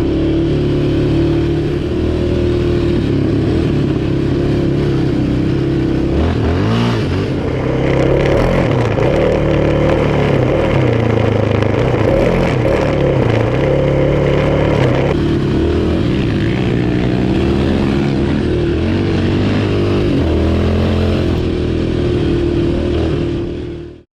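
Quad (ATV) engine running and revving, the pitch rising and falling with the throttle, cutting off suddenly at the end.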